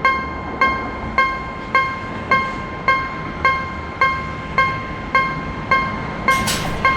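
Railway level-crossing warning bell sounding with even, ringing strikes, a little under two a second, over the low rumble of a train; a short hiss comes near the end.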